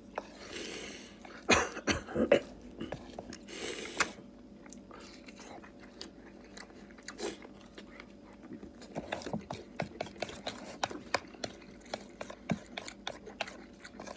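A person eating close to the microphone: chewing, with a few louder knocks about two seconds in and a dense run of small clicks in the second half.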